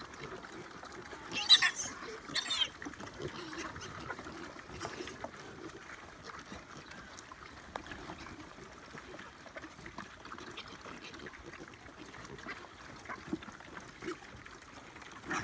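Wild boars and piglets eating from feed pans: steady wet chomping and rustling, with two short shrill calls about one and a half and two and a half seconds in.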